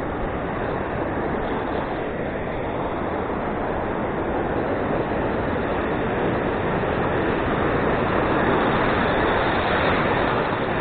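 Sea surf breaking on a beach: an even wash of noise that grows louder in the second half as a wave comes in.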